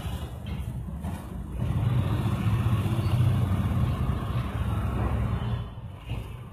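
Low rumble of a motor vehicle, swelling about a second and a half in and fading near the end, as of a vehicle passing by.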